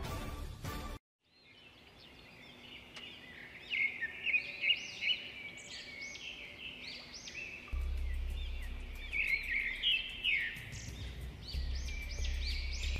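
Background music cuts off about a second in, followed by birds chirping repeatedly in quick short calls. A low rumble joins the chirping in the second half.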